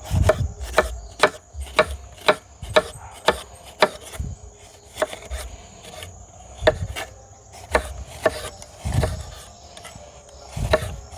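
Knife cutting a bell pepper on a cutting board: sharp knocks of the blade on the board about twice a second, with the pace loosening in the second half. A steady high chirring of crickets runs underneath.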